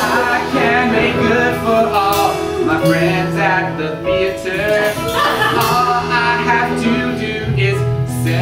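A man singing a solo song over instrumental accompaniment.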